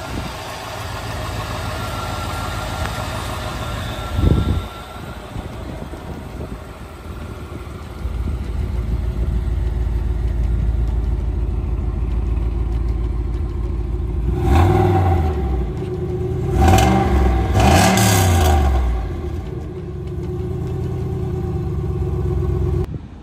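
1993 Cadillac Allante's 4.6-litre V8 running at idle and then revved three times, each rev rising and falling in pitch. A short thump about four seconds in.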